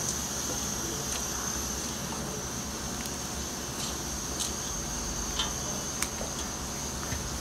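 Water simmering in a wok with a steady hiss, with a few small knocks and splashes in the second half as raw mutton pieces are dropped in.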